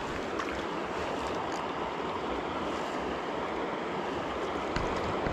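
River water rushing steadily, with a couple of faint ticks.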